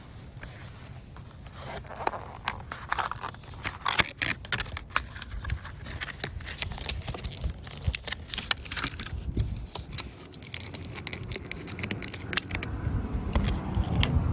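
Small plastic parts being handled: an irregular run of sharp clicks, scrapes and crackles as a car light bulb is taken out of its socket and a replacement bulb is tried in.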